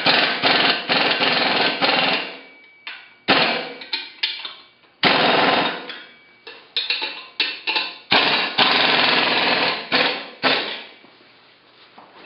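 Bolts on the bottom bars of a steel glass-lathe stand being loosened with a tool: five or so bursts of rapid rattling clicks, each one to two seconds long, dying away near the end.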